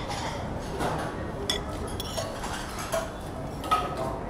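Metal spoon and fork clinking and scraping against a ceramic plate of rice, with a few sharp clinks, the clearest about a second and a half in and again near the end.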